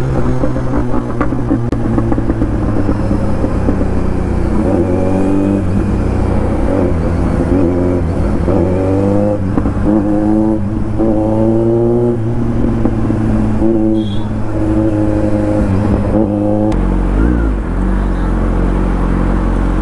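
Kawasaki Z900's inline-four engine with an SC-Project aftermarket exhaust, revving up in several short rising pulls as the bike accelerates. It settles to a steady low idle near the end.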